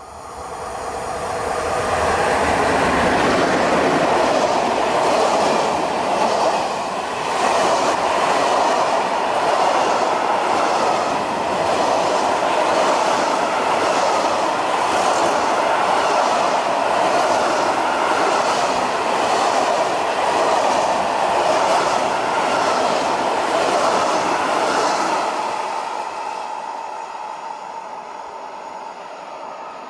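Freight train hauled by an ET22 electric locomotive passing close at speed. The wagons rumble and clatter with a rhythmic clack about once a second as the wheelsets go by. The sound builds over the first two seconds and fades as the train draws away near the end.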